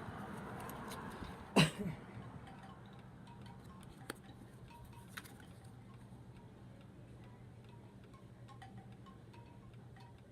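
Tarot cards being handled and laid down: faint clicks and taps, with one sharper tap about a second and a half in, over a steady low hum.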